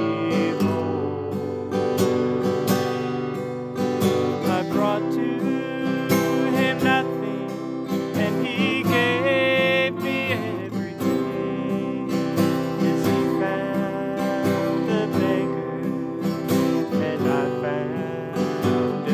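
Acoustic guitar strummed steadily, with a man singing over it in places.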